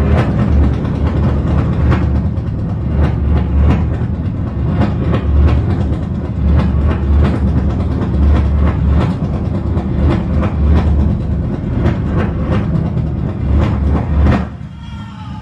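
Subway train running: a loud low rumble with repeated clatter of wheels over the rails, dropping away suddenly near the end.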